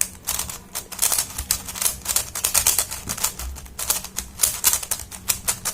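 YJ Yuhu V2M megaminx being turned quickly by hand: a fast, irregular run of plastic clicks and clacks as its faces snap round.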